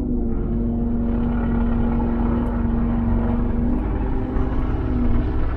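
Heavy equipment running steadily, heard from inside an excavator cab beside a working wood chipper: a constant engine drone with a held hum.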